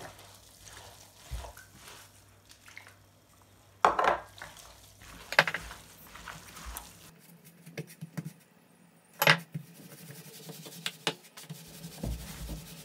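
Kitchen handling sounds: scattered sharp knocks and clinks from mixing minced meat by hand in a glass bowl and rolling out dough with a wooden rolling pin on a wooden board.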